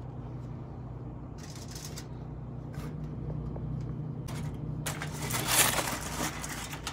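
Rustling and scraping handling noises, a few short ones and then a longer, louder stretch about five to six seconds in, over a steady low hum.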